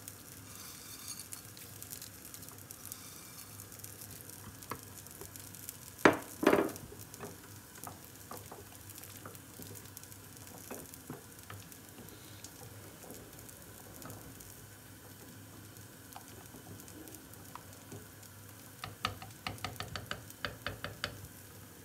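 A wooden spoon stirs simmering harira soup in a stainless steel pot, over a steady low hiss. The spoon knocks loudly twice about six seconds in, and taps quickly against the pot near the end.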